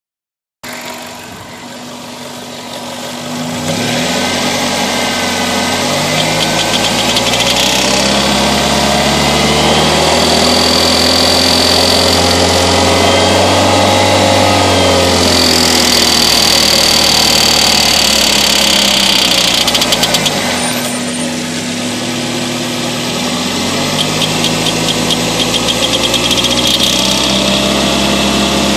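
Toyota Corolla's 1ZZ-FE 1.8-litre four-cylinder engine running, with a rapid ticking over it; the engine speed rises and falls a few times. The ticking appeared after the oxygen sensors and coolant temperature sensor were replaced, and its cause is unknown to the owner.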